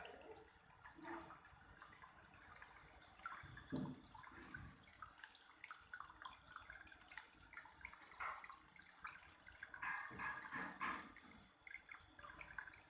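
Faint trickling and splashing of water from a small homemade decorative water fountain.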